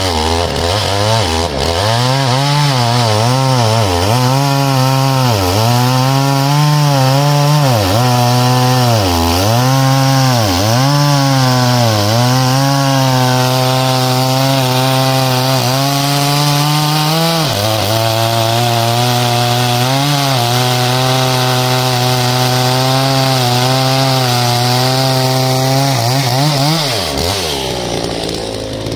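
Oleo-Mac GSH 510 two-stroke chainsaw at full throttle cutting through a large log. The engine pitch dips and recovers again and again as the chain loads in the wood, then holds steadier through the rest of the cut. It drops away near the end as the saw comes off the wood.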